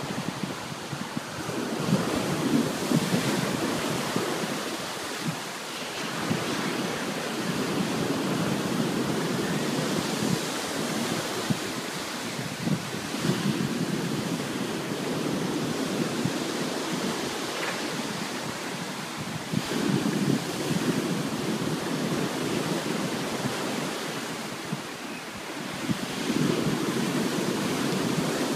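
Storm surf: heavy waves breaking and rushing in a continuous roar that swells with each wave, several times, with wind buffeting the microphone.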